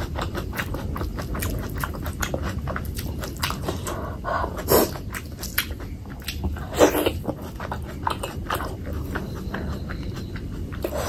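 Close-miked chewing and biting of a mouthful of fatty pork belly curry with rice: a steady run of quick wet clicks and smacks, with two louder wet sounds about five and seven seconds in.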